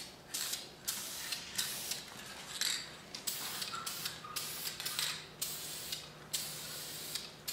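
Aerosol can of VHT roll bar and chassis paint spraying in a string of short hissing bursts with brief gaps, laying a light black base coat on a motorcycle frame.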